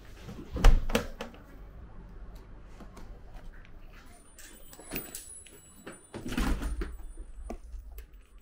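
A sharp knock about half a second in as slippers go into a slipper sterilizer cabinet, a few light clicks and steps, then an elevator door sliding shut with a low rumble near the end.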